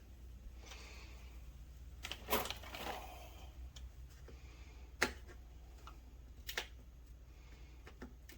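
Scattered light clicks and knocks of parts and tools being handled on a workbench during master cylinder bench bleeding, a small cluster about two and a half seconds in and the sharpest single click about five seconds in, over a low steady hum.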